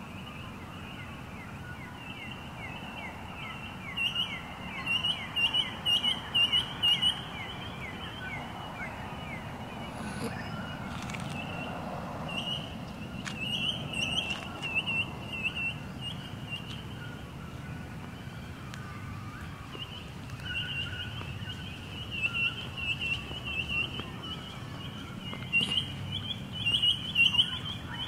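Dawn chorus of birds: a steady chatter of high chirps, with bursts of quick repeated notes several times, over a faint low rumble.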